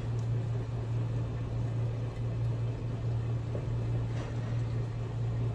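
A steady low hum with a faint even hiss over it.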